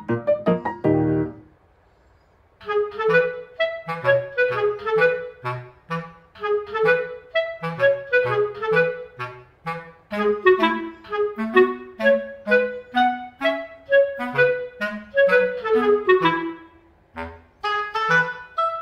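Background music: a melody of short notes over short bass notes. It starts about two and a half seconds in after a brief silence and pauses briefly near the end.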